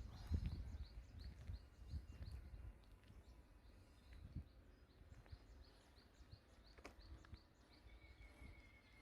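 Small birds chirping, short high calls repeated about twice a second, over a faint low rumble of wind or handling noise.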